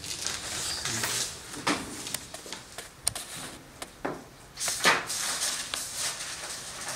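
Papers, books and a folder being handled on a desk: a series of short rustles and shuffles, the longest and loudest just past the middle.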